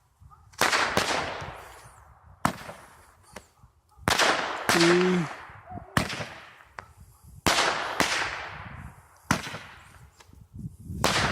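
Black Cat 10 Report Repeater Roman candle firing: a series of sharp bangs, several coming in close pairs (its double-report shots), each trailing off in an echo.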